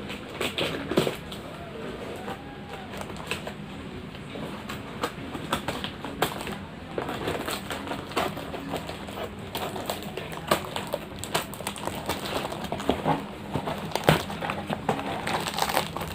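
A parcel being opened by hand: irregular crackling, rustling and tearing of the packaging, with many sharp clicks and snaps throughout.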